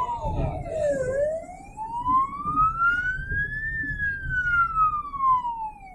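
Ambulance siren in wail mode, heard from inside the vehicle: one slow tone that dips low about a second in, climbs for nearly three seconds, then falls again near the end, over a low rumble of road noise.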